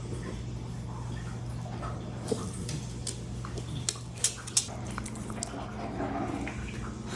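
Shiba Inu moving about, making a handful of short sharp clicks about halfway through and faint rustles, over a steady low hum.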